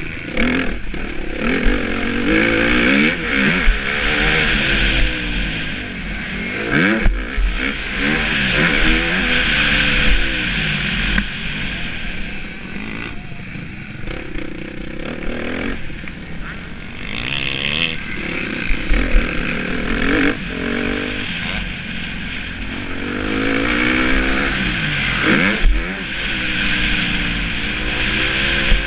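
2015 Suzuki RM-Z250 motocross bike's single-cylinder four-stroke engine, revving up and falling back again and again while it is ridden around a dirt track. There are a few low thuds along the way.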